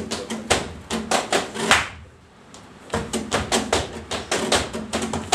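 Flamenco palmas and footwork: quick, sharp hand claps and heel strikes on a wooden stage, several a second, over flamenco guitar chords. The strikes stop for about a second just after the two-second mark, then start again.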